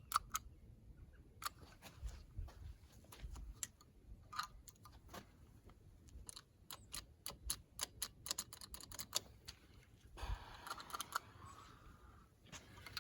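A run of light, irregular clicks and taps from small plastic and metal parts being handled, a seat belt latch and its wiring connector, with a short rustle about ten seconds in.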